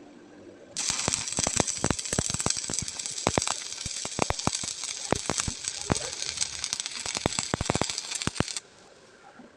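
Electric arc welding: the arc strikes about a second in and runs for about eight seconds as a steady crackling sizzle with many sharp pops, then cuts off suddenly when the arc is broken.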